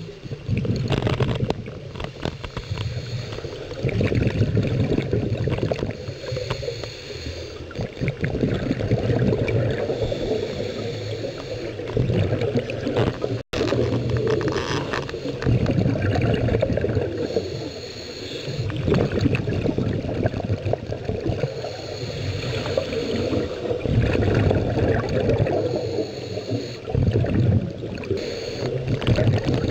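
Scuba diver breathing through a regulator underwater: bubbling, gurgling exhalations that swell and ease every few seconds, with quieter stretches between breaths.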